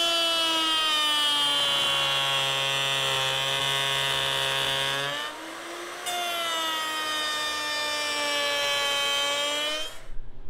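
Electric plunge router running and cutting along the edge of a wooden board: a steady high whine whose pitch sags slightly under load. The whine dips and recovers about five seconds in and cuts off abruptly near the end.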